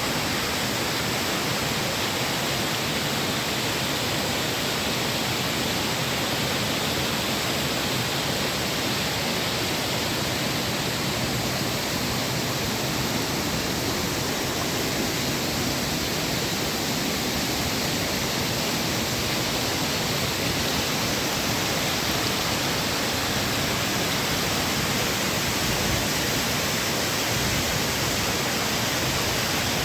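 Waterfall crashing steadily, an even, unbroken rush of falling water.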